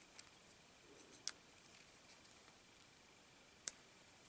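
A few faint, sharp ticks of fingernails picking sticky glue off a small metal coin held in the fingers.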